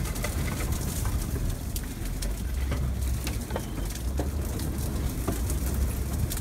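A Honda being driven over rough off-road ground, heard from inside the cabin: a steady low rumble with scattered knocks and rattles.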